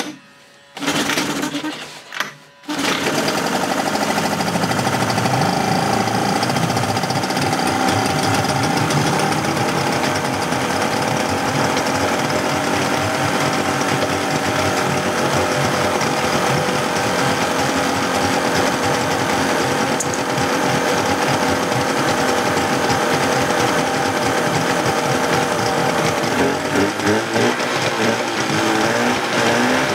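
Two-stroke outboard motor being pull-started: two short bursts from the pulls, then it catches about three seconds in and runs steadily. Near the end its speed rises and falls as the choke is worked.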